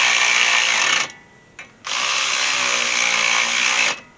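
Power tool running in two steady bursts of about two seconds each, driving bolts into a stuck brake rotor to press it off the hub.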